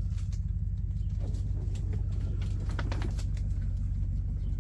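A steady low hum, like a running motor, with a few light clicks over it.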